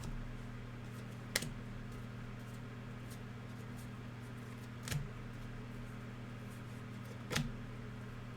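Trading cards being handled and set down during a pack opening: three short sharp clicks, about a second and a half in, about five seconds in and about seven and a half seconds in, over a steady low electrical hum.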